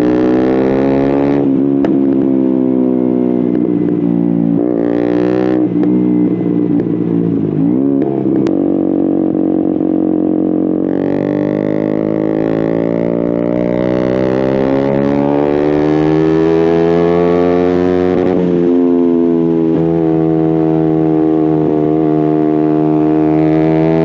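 2017 KTM Duke 125's single-cylinder four-stroke engine through an aftermarket Akrapovic exhaust with a decat link, ridden hard: the revs fall and rise with throttle and gear changes, with a long climb through the middle, a sharp drop about three-quarters through, then climbing again.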